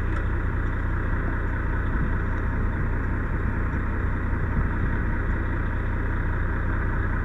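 An engine running steadily at idle, with an even low hum and no change in speed.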